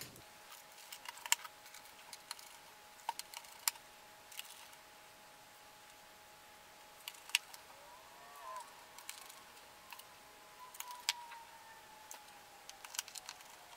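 Faint scattered clicks and taps of a small screwdriver and fingertips on a MacBook Pro's aluminium bottom case as its screws are driven back in, over a faint steady tone.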